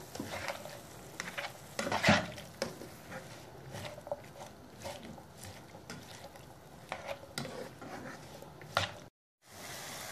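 A spatula stirring chicken and vegetables in a karahi (wok), with irregular scrapes against the pan over a light, steady frying sizzle. The sound cuts out completely for a moment near the end.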